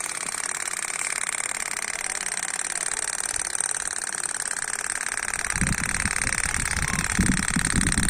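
Small DC motor of a homemade mini water pump running steadily with a high-pitched whine. About two-thirds of the way in, a louder, rough low rumbling noise joins it.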